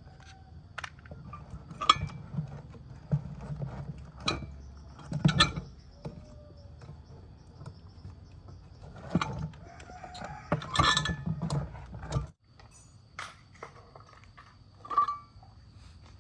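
Irregular clicks and knocks of parts and tools being handled during a washing machine repair, over a low hum that cuts off suddenly near the end.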